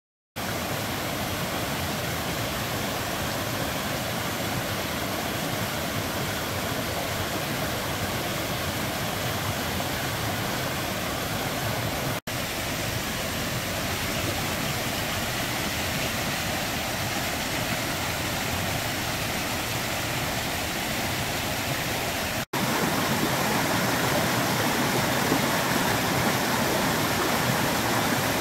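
Mountain stream running full the day after a rain shower, rushing and splashing over rocks in small cascades: a steady rush of water. It cuts out for an instant twice and is louder after the second break.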